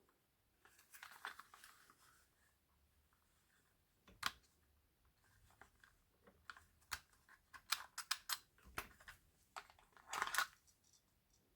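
Airsoft replicas being handled: scattered sharp clicks and knocks, coming thicker partway through, with a brief rustle near the end.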